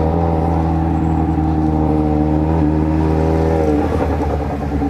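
Yamaha XJ6's 600 cc inline-four engine running under way at steady revs, its note easing off near the end as the throttle is let off.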